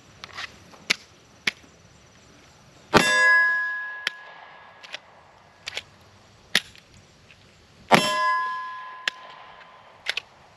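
Two single shots from a 9mm Glock 43X pistol about five seconds apart, each followed by a ringing clang that fades over a second or so. Small clicks and knocks of the pistol being handled come in between. The magazine is mud-fouled and is being tried in a torture test.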